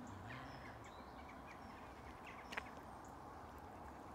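Faint birdsong: scattered short chirps from small birds in the trees, with one sharp click about two and a half seconds in.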